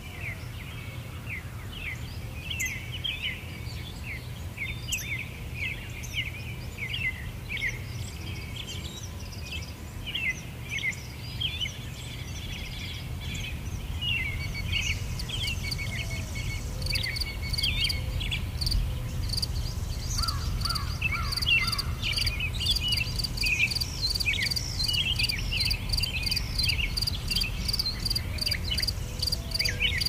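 Songbirds chirping and calling in many short, quick notes over a low steady rumble. About halfway through, insects join with a high chirping that repeats evenly and gets louder.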